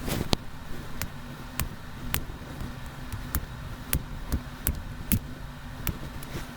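Small repair tools clicking and tapping against a smartphone's internal parts as it is taken apart: about a dozen sharp, short clicks at irregular half-second spacing, over a steady low hum.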